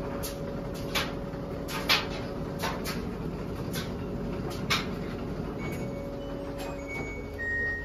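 LG front-load washer humming steadily with a held motor tone during an intermittent spin, with a few sharp knocks. Near the end, the LG dryer's end-of-cycle tune starts as a run of stepped electronic beeps, signalling that the dryer has finished.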